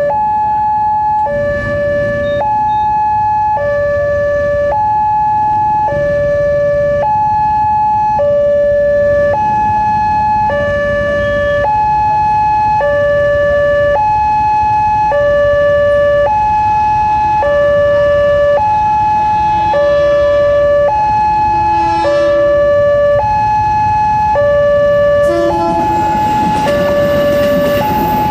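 Wantech railway level-crossing alarm sounding a two-tone warning, a higher and a lower tone alternating about once a second, signalling that a train is approaching. Near the end a KRL commuter electric train begins passing, and its running noise joins the alarm.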